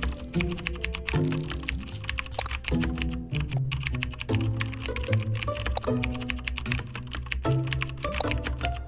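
Background music with short bass and mid notes changing about twice a second, under a dense run of quick clicks like typing on a computer keyboard.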